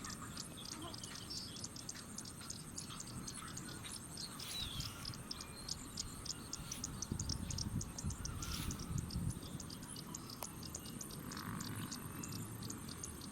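Outdoor nature sounds: insects keep up a steady high-pitched trill with regular chirps at about three a second, and a few birds call now and then.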